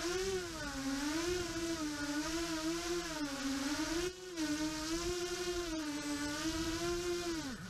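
An EMAX Nighthawk 250 quadcopter's brushless motors (EMAX MT2204-2300KV) whine with the propellers, the pitch rising and falling with the throttle and dipping briefly about four seconds in. Right at the end the pitch drops away as the motors spool down.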